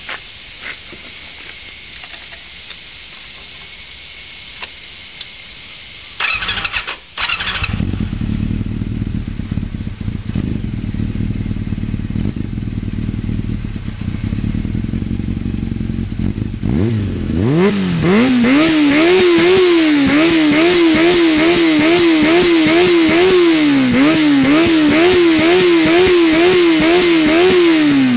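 Honda CB400 Super Four (NC31) inline-four motorcycle engine cranked on the starter. It catches about a quarter of the way in and idles steadily. Then it is revved up and blipped repeatedly, about two throttle blips a second, over the last ten seconds.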